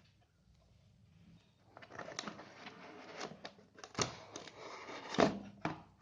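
A cardboard laptop box being opened by hand: after a quiet first second and a half, a run of rustling, scraping and sharp knocks from the flaps and packaging, the loudest knocks about four and five seconds in.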